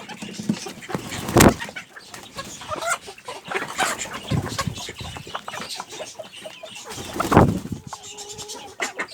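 Pekin bantam chickens clucking and squabbling as they scramble for treats, with many short clicks among the calls. Two loud thumps stand out, about a second and a half in and again near seven and a half seconds.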